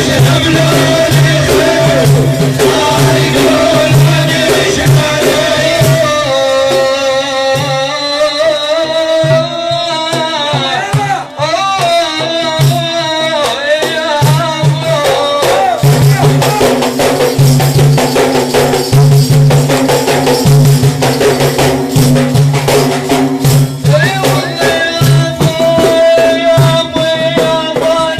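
Sufi dhikr music: a voice singing a wavering, drawn-out religious chant over frame drums with jingles, beaten in a quick, steady rhythm.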